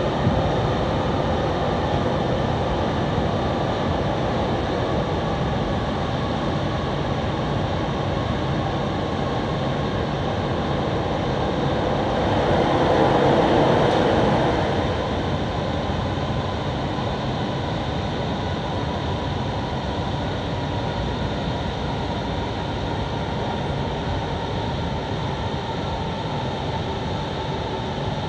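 Rubber-tyred MP05 metro train running steadily through a tunnel, a continuous rumble and hiss of tyres and motors. About halfway through, a train passing on the adjacent track adds a louder rush for two or three seconds.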